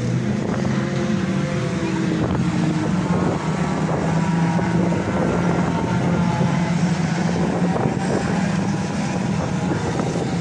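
A pack of junior banger racing cars lapping a shale oval, several small engines running together in a steady drone, their pitches rising and falling as the cars accelerate and back off.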